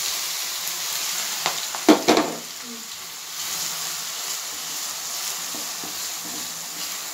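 Chopped onions and green chillies sizzling in hot oil in a pot as they are stirred with a wooden spatula. The sizzle is loudest in the first two seconds, with a few sharp knocks on the pot about two seconds in, then settles to a steady hiss.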